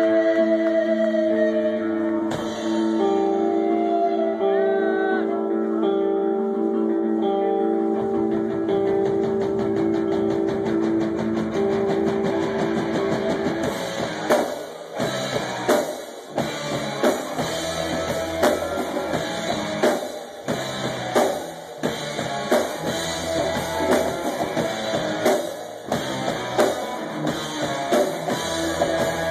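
Live rock band playing through the PA, with electric guitar and keyboard. The first half is long held notes; about halfway through, drums come in with a steady beat.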